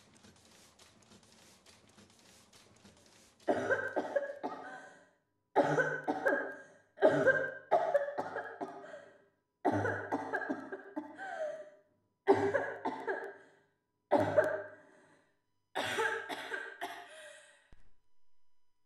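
A man coughing in a long series of fits, about eight bouts, each a cluster of coughs, starting a few seconds in.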